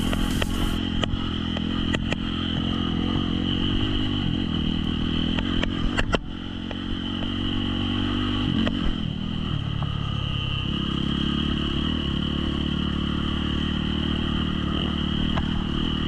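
Trail motorcycle engine running at steady revs, its note shifting about six seconds in and again a little past ten seconds, with scattered sharp clicks and knocks, loudest around six seconds in.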